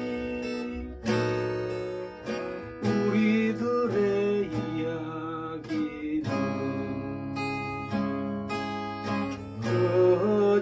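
Acoustic guitar strumming chords in a folk song, each strum ringing on for a second or two.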